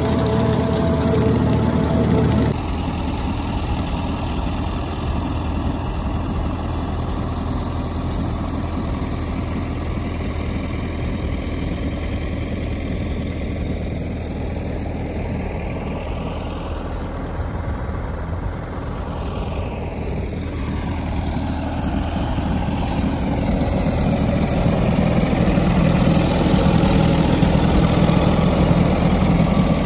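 Allis-Chalmers WD45 tractor engine idling steadily, growing louder near the end.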